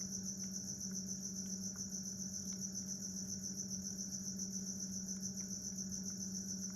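Steady chorus of crickets, a continuous fast high trilling, over a low steady hum.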